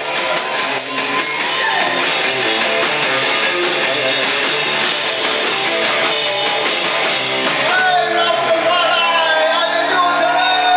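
Live rock band playing loudly: distorted electric guitar over a drum kit. About eight seconds in, the drumming thins out and a chord is held, with a wavering sustained note ringing over it.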